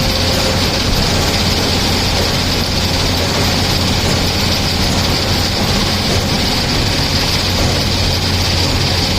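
Tata Hitachi excavator's diesel engine running at a steady speed, a constant low hum with no changes.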